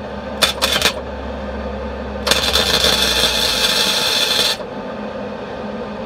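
Wire-feed welder arc crackling as a bead is laid on steel: a brief strike about half a second in, then a steady run of a little over two seconds that stops suddenly.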